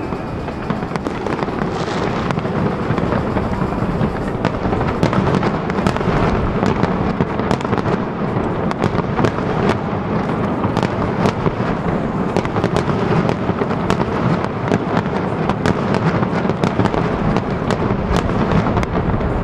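Fireworks display: a dense barrage of booming bursts and crackling, with sharp bangs coming thick and fast from about four seconds in.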